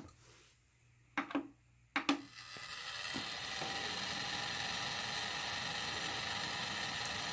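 Infrared space heater switched on with a few clicks. About two and a half seconds in, its fan spins up and then runs with a steady mechanical grinding noise. The owner suspects gear noise or something caught in the fan, and takes the heater for defective.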